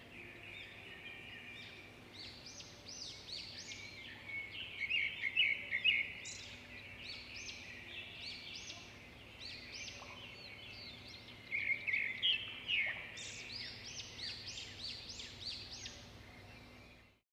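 Small birds chirping rapidly and continuously, with louder flurries about a third of the way in and again past the middle. The chirping cuts off abruptly just before the end.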